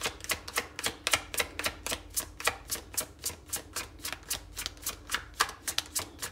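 Tarot deck being shuffled by hand: a quick, even run of card clicks, about three or four a second.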